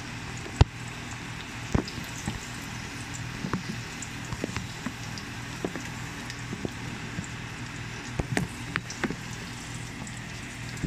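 Rice frying in ghee in a pan: a steady sizzle with scattered sharp pops and clicks, the loudest about half a second in, over a steady low hum.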